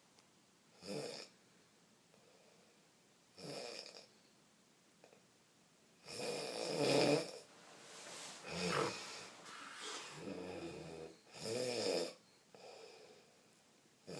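A man snoring heavily, snores so loud they are likened to a horse's. About six irregular snores, the loudest around six to seven seconds in, with one drawn out into a low rumble near ten seconds.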